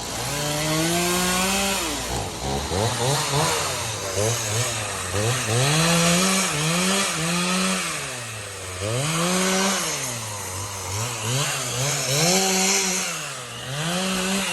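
Gas chainsaw engine revving up and falling back again and again, its pitch rising and dropping every second or two, as the throttle is worked while cutting wood.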